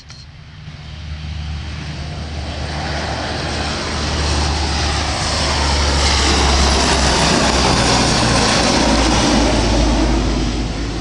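Lockheed C-130H Hercules with four Allison T56 turboprop engines passing low overhead. The propeller and engine drone swells over the first few seconds, is loudest in the middle and starts to fade near the end.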